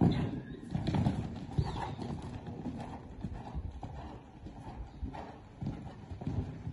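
Hoofbeats of a five-year-old mare cantering on a sand arena footing, a steady run of low, dull thuds.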